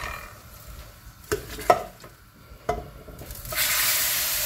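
Hot tadka of oil, browned onion and cumin tipped from a metal pan into a pot of masoor dal. First come three sharp metallic knocks of the pan against the pot. Then, about three and a half seconds in, a loud steady sizzle starts as the hot oil meets the dal.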